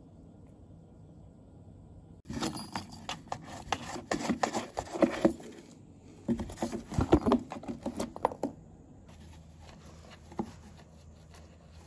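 A cat pawing through the holes of a cardboard toy box, with toy balls knocking and rolling against the cardboard and claws scraping it. It is quiet at first, then about two seconds in comes a busy run of knocks and rustling for some six seconds, followed by a few scattered taps.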